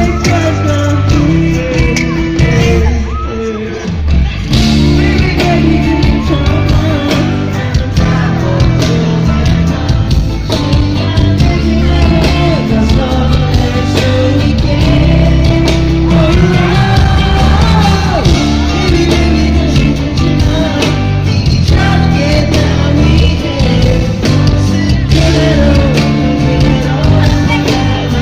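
Pop music with a sung vocal played loud through a concert sound system during a sound check, with a steady beat.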